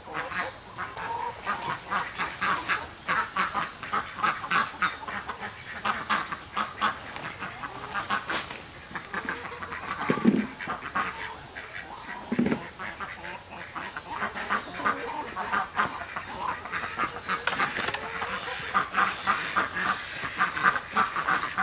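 A flock of domestic ducks quacking almost without pause, many overlapping calls. Two dull thumps come about ten seconds in and again two seconds later.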